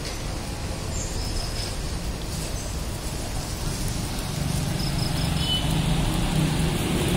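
Pork skewers sizzling on a charcoal grill, with a steady crackling hiss. From about four seconds in, the low rumble of a vehicle engine grows louder.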